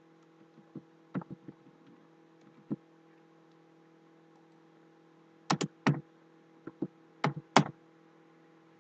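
Computer keyboard keystrokes: a few light taps early, then quicker, louder pairs of keystrokes in the second half, over a faint steady electrical hum.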